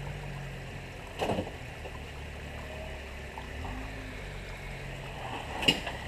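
Jeep Wrangler engine running low and steady as the Jeep creeps down rock ledges, with a sharp knock near the end.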